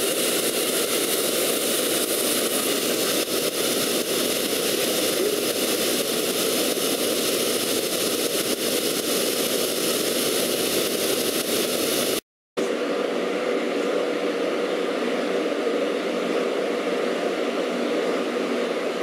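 Plasma torch of a portable CNC cutting machine cutting steel plate: a loud, steady hiss of the arc and gas. About 12 seconds in it cuts off for a moment and resumes as a duller, softer hiss with a faint steady hum.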